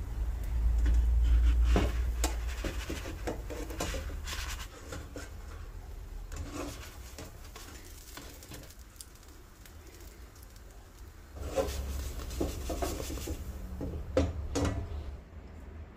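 Spatula scraping and tapping against a non-stick frying pan as a pancake is worked loose, turned and lifted out: scattered clicks and scrapes, busiest in the first few seconds and again near the end, over a low rumble.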